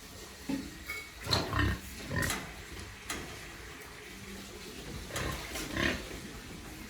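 Pigs grunting: a string of short, separate grunts scattered irregularly, with a couple of louder ones about one and a half seconds in and near the end.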